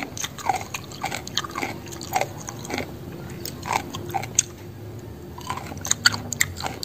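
A person chewing mouthfuls of food close to the microphone: irregular crunches and wet mouth clicks.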